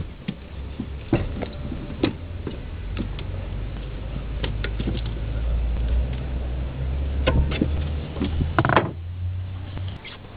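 Rubber breather hose and nearby hoses and wiring being handled and pushed onto a valve-cover fitting in an engine bay, giving scattered clicks and rustles. A brief cluster of sharp clicks comes near the end, over a steady low rumble.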